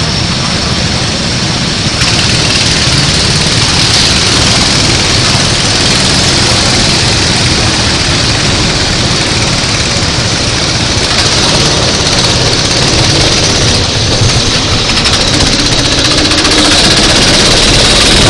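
Racing kart engine running loud and close, a continuous dense buzz that grows a little louder near the end.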